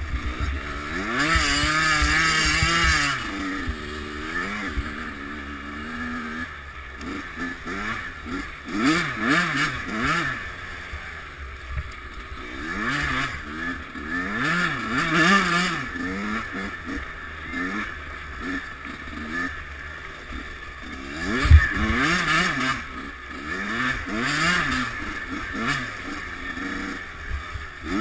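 Kawasaki KX100 two-stroke dirt bike engine revving up and down repeatedly as the rider works the throttle, heard from a helmet camera. A single sharp thump stands out about two-thirds of the way through.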